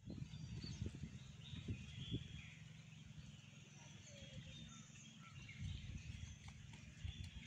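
Outdoor rural ambience: small birds chirping here and there over a low, uneven rumble on the microphone.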